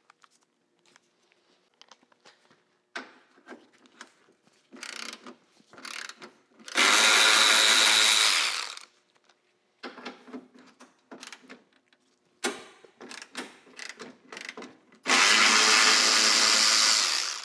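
Cordless electric ratchet running twice, about two seconds each time, backing out two 12 mm bolts, with light clicks and taps of tool handling in between.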